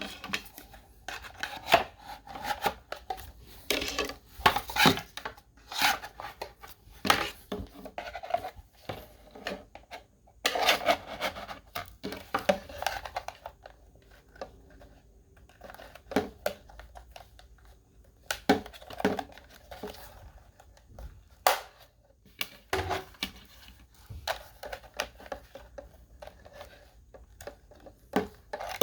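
Plastic toy pieces and their packaging being handled: irregular clicks, taps and scraping of small hard objects.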